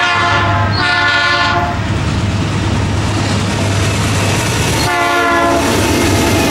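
A freight train's diesel locomotive sounds its air horn in two blasts. The first carries on from before and cuts off about a second and a half in; the second starts about five seconds in as the lead units pass. Between the blasts the locomotives' engines rumble steadily and the wheels run on the rails.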